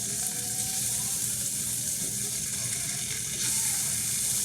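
Sausage patties frying in a hot pan, a steady sizzle that grows louder about three and a half seconds in.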